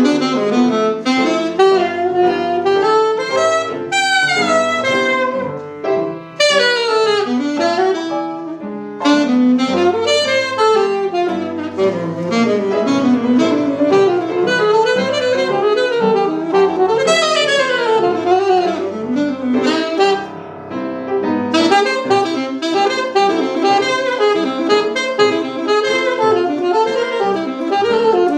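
Jazz saxophone playing a flowing melody with runs and glides, over upright piano accompaniment, with a few short breaths between phrases.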